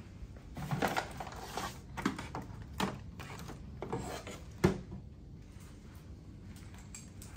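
Handling noises from plastic medical tubing and packaging being taken out of a plastic supply bin: a string of light knocks, clicks and rustles, with a sharper knock about four and a half seconds in.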